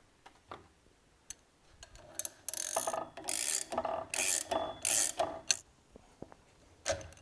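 A metal hand tool clicking and rasping in a run of about five short strokes, a little under two a second, starting about two seconds in, as the rear bearing is worked off the gear pump's shaft.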